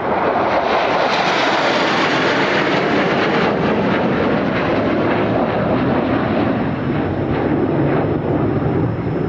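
Jet noise from a Mitsubishi F-2 fighter's single afterburning turbofan as it passes. The noise rises sharply, is at its brightest and harshest in the first few seconds, and then holds loud but duller as the jet moves off.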